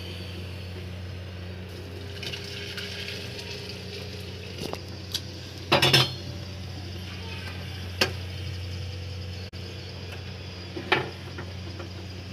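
A steel pot clinking and knocking as hot water is poured from it into a clay handi, with the loudest clatter about six seconds in and two sharper knocks later on. A steady low hum runs underneath.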